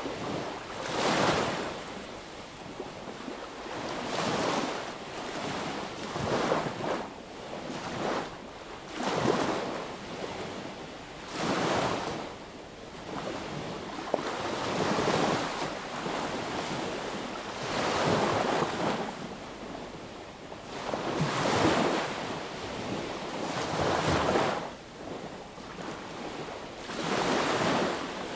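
Small sea waves breaking and washing up a beach, one rush of surf every two to three seconds, about ten in all.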